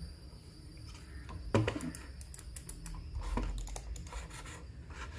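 Two wireless computer mice, a Logitech MX Master 3 and an M950t, handled and put down on a desk: a run of light clicks and taps, with a louder knock about a second and a half in.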